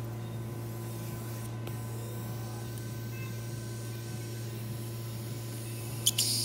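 Steady electrical hum with faint hiss, with two or three sharp clicks and a short burst of hiss near the end.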